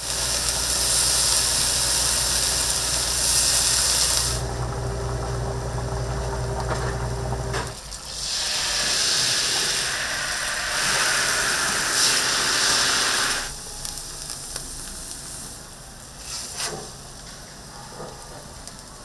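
Food sizzling on a hot griddle, in stretches of hiss that start and stop abruptly, with a steady low hum under the first several seconds. Quieter for the last few seconds, with a few sharp clicks.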